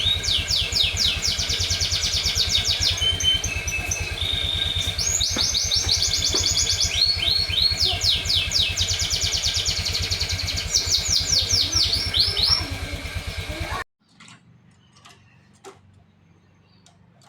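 A songbird sings long runs of rapid repeated trill notes, high-pitched and loud, broken by short pauses, over a steady low motor-like hum. Both cut off abruptly about fourteen seconds in, leaving near quiet with a few faint clicks.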